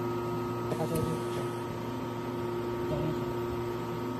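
Steady electrical hum with several fixed tones from a running automatic welding machine setup, with faint voices under it.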